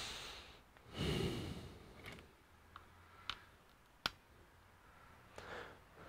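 Faint handling noise at a workbench: soft breathy rustles at the start and about a second in, then a few small sharp clicks, the sharpest about four seconds in.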